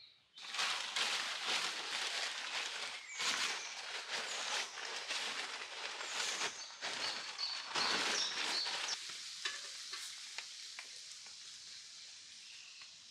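Dry leaves and brush rustling and crackling, a dense crunchy noise that starts suddenly, goes on for about nine seconds, then thins out to a few scattered clicks.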